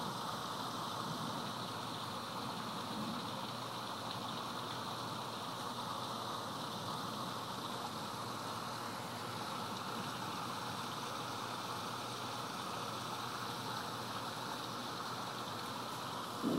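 Heavy thunderstorm rain pouring down steadily in an even, unbroken hiss.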